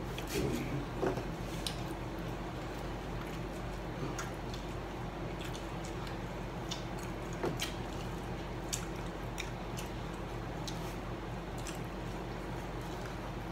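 Quiet eating sounds: chicken nuggets being pulled apart and chewed, with scattered small clicks and wet squishes over a steady low hum.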